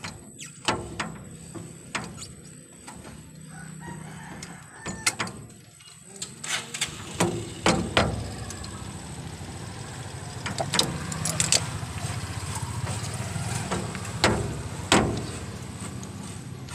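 Pliers working on a steering tie rod end: irregular sharp metal clicks and scrapes. A rooster crows in the background.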